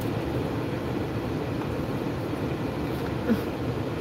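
Steady low hum in a car's cabin while it sits with its systems running, with one short voiced sound about three seconds in.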